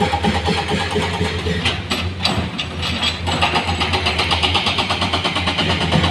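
Heavy diesel engine running steadily with an even, pulsing beat, with a brief burst of clatter about two seconds in.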